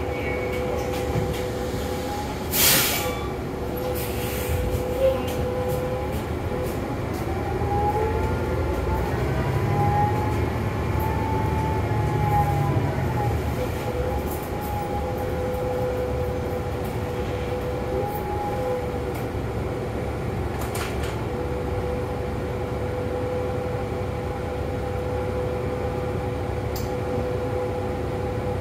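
Cabin sound of a New Flyer XD40 diesel city bus on the move: a steady drivetrain whine over road and engine rumble. About eight seconds in, the whine climbs in pitch and the rumble swells as the bus speeds up, then both fall back a few seconds later. A short, loud hiss sounds about three seconds in.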